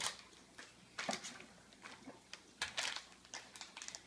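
Crinkling of a foil blind-bag packet being handled and cut open with scissors: a string of short, irregular crackles.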